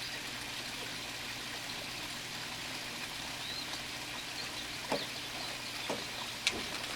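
Steady trickle of running water, with a bird chirping a few times and three light knocks of PVC drain pipe being handled and fitted, the last the loudest.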